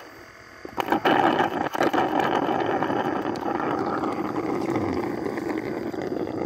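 Suction tube drawing honey out of the opened honey pots of an Itama stingless-bee nest: a steady suction noise that starts about a second in, with a couple of clicks as the nozzle knocks against the pots.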